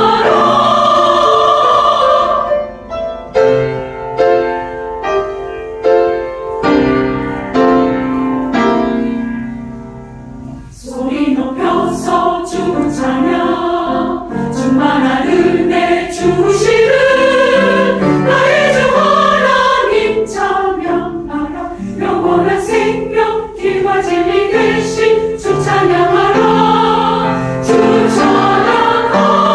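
Church choir singing a hymn anthem with piano accompaniment. A held choral chord gives way after about two seconds to a piano interlude of rhythmic struck notes. The choir comes back in about eleven seconds in and sings to the end.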